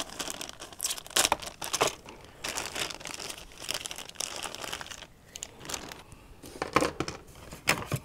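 Clear plastic bag crinkling and rustling in irregular bursts as a packet of plastic water-level indicators is handled and pulled open, with a few sharper knocks near the end as hard plastic tubes are moved in a cardboard box.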